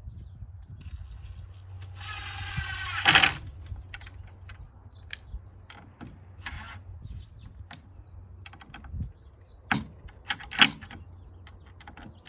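Hinge hardware being fitted to a wooden coop door: a power driver whines steadily for about a second while driving a screw, ending in a loud sharp knock, then small metal clicks and knocks of screws and hinge being handled, with two louder knocks near the end.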